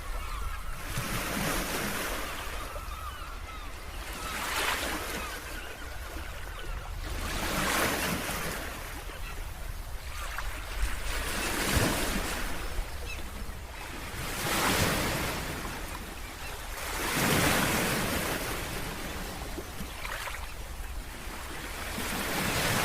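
Sea waves washing onto a beach, each wash swelling and fading every three seconds or so, over a steady low rumble of wind on the microphone.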